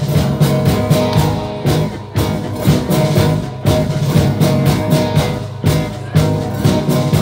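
Live band playing without vocals: strummed acoustic guitar, electric guitar, electric bass and bowed cello, in a steady rhythm.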